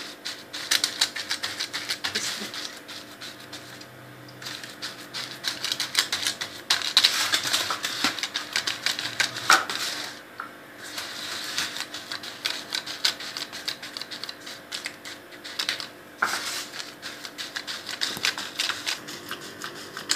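A hand pressing and patting buttery crushed Oreo crumbs into a foil-lined pan: dense crackling and crinkling in stretches, with brief pauses about four, ten and sixteen seconds in.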